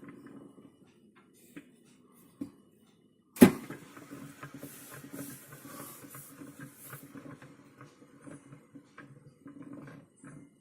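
Lower spray arm of a Bosch dishwasher spun by hand. A knock about three seconds in, then a light rattling whir with small clicks for several seconds as the arm turns freely and slows, showing it is not blocked.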